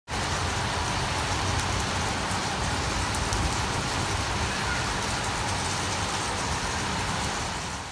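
Steady rain falling, an even hiss with scattered faint drop ticks over a low rumble.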